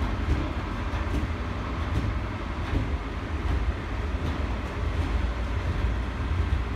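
Freight train's open box wagons rolling past at close range: a steady low rumble of wheels on rail, with faint regular clicks about once a second.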